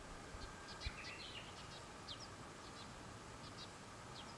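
Faint birds chirping: short high chirps scattered throughout, with a brief whistled note about a second in. A single soft knock just before a second in.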